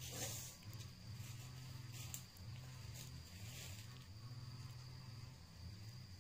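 Faint outdoor ambience: a steady high-pitched insect drone over a low wavering hum, with three brief rustles.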